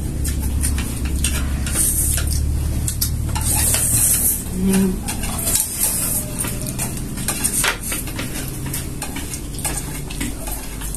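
Several people slurping spicy instant noodles in quick bursts of sucking hiss, with chopsticks clicking and scraping against plates.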